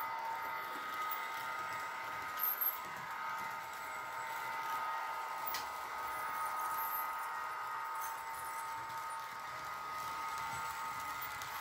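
Märklin model electric locomotive running steadily on the track, its motor giving a constant high whine over a light rolling rattle of the wheels. There is one small click about halfway through.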